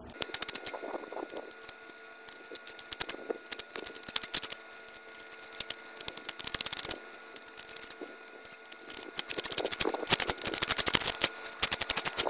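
A pointed hand tool scraping and scratching along a concrete sidewalk crack, digging out weeds, dirt and debris. It goes in bursts of quick strokes with short pauses between them.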